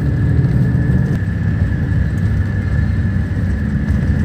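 Steady low rumble of a vehicle on the move: engine and road noise, with a faint, steady, high whine over it.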